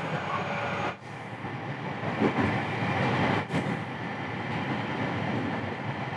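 Rapid Marine Liner electric train running at speed, heard from inside the carriage: a steady rumble of wheels and running gear on the rails.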